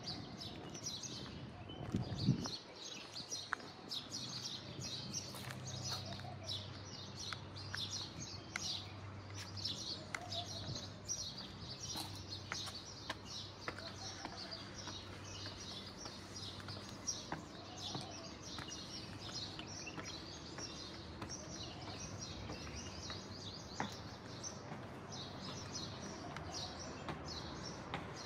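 Many small birds chirping continuously in short, high calls over a steady low hum, with a single thump about two seconds in.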